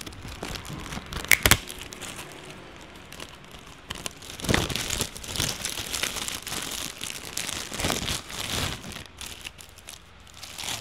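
Clear plastic bag crinkling and rustling as it is pulled off a speaker, irregular and loudest in the middle stretch. Two sharp clicks come about a second and a half in.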